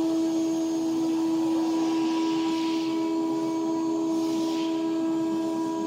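Spindle of an AKM6090C ATC CNC router running with a steady high whine, and a hiss that swells twice, around the second and fourth seconds.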